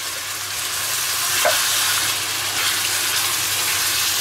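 Minced meat and tomato sauce sizzling in a stainless steel frying pan while being stirred with a plastic spatula, just after chopped tomatoes were added, loosening the browned bits on the pan's bottom. A short scrape of the spatula against the pan comes about one and a half seconds in, over a low steady hum.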